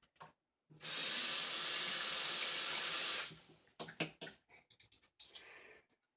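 Bathroom sink faucet running full for about two and a half seconds, then turned off, followed by a few light knocks and clicks.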